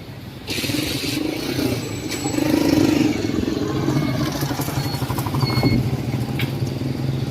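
Street traffic: a motor vehicle engine, likely a motorcycle, running close by, with a burst of hiss about half a second in and a steady low hum through the second half.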